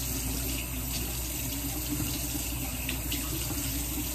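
Bathroom sink tap running steadily while water is scooped up in the hands and splashed onto the face.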